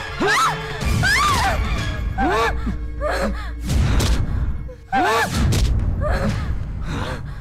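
Soundtrack of a struggle: repeated gasps and short cries, with several heavy thuds, over dramatic background music.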